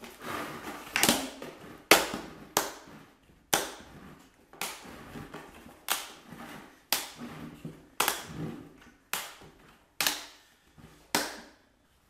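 Plastic bucket lid, fitted with a cyclone dust-separator cone, snapping down onto the bucket rim as it is pressed home around the edge: about a dozen sharp clicks, roughly one a second.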